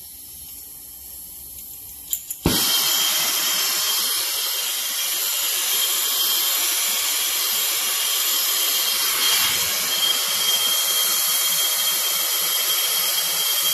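A hose-fed soldering torch is lit about two and a half seconds in, with a couple of quick clicks just before, then burns with a steady, loud hiss while it heats a copper fitting for sweat-soldering.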